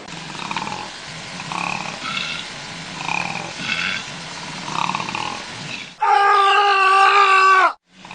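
Animal calls: soft repeated calls about once a second over a low hum, then an abrupt switch to one loud, long, steady-pitched call of nearly two seconds that cuts off sharply.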